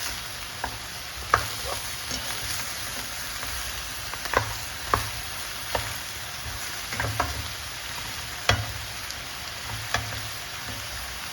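Pork ribs sizzling in oil in a wok-style pan, with a steady hiss, while a utensil stirs them, scraping and knocking against the pan every second or so.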